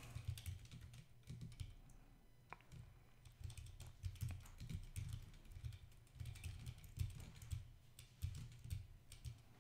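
Typing on a computer keyboard: faint, irregular keystrokes in short runs with brief pauses.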